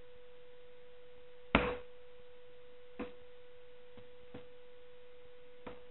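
A sharp snap about a second and a half in as a screwdriver pops the retaining clip out of a plastic clutch master cylinder, followed by three lighter clicks, over a steady electrical hum.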